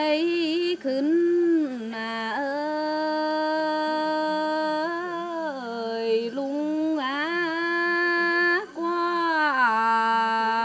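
A woman singing a Tày lượn cọi folk song solo, without accompaniment: long held notes that waver and slide between pitches, with a few short breaks for breath.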